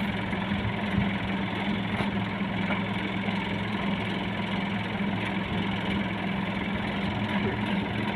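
Maxxi Bimo combine harvester's engine running at a steady speed, with an even hum that does not change.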